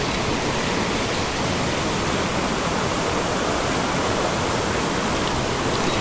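Fast mountain stream rushing over boulders: a steady, even noise of white water.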